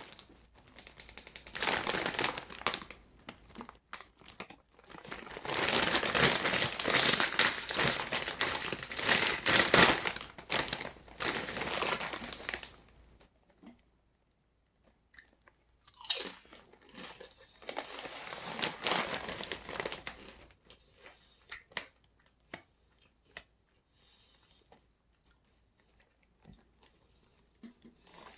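Close-miked crunching and chewing of Doritos Bold BBQ tortilla chips, in three loud spells of dense crunching. Near the end it fades to a few soft mouth clicks.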